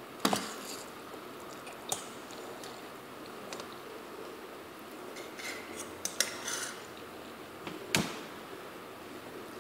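A metal fork clinks against a stainless steel bowl a few times, loudest just after the start and again about eight seconds in. Between the clinks come softer sounds of instant noodles being slurped and chewed.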